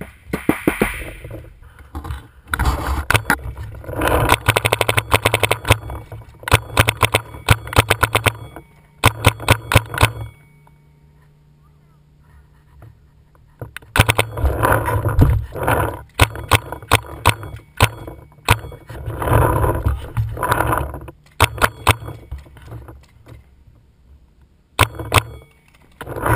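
Paintball markers firing in rapid volleys, strings of sharp pops in quick succession lasting a few seconds each, with a lull of about three seconds some ten seconds in before the firing picks up again.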